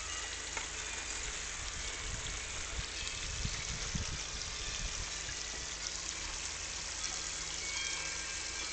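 Water jetting from the PVC spray bars of a Little 49'er mini highbanker onto its perforated classifier screen and running down the sluice: a steady splashing and trickling.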